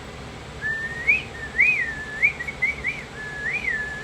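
Clear whistling: a run of short notes that each glide up and down, starting about half a second in.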